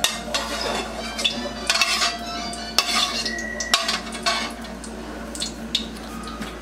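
Metal cookware clattering: a metal spatula and ladle knocking and scraping against a steel wok, with clinks from an aluminium pot lid, in scattered irregular strikes.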